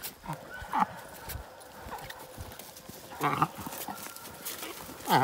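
A leashed catch dog whining in short cries that fall in pitch, three of them a couple of seconds apart, with footsteps on the dirt trail.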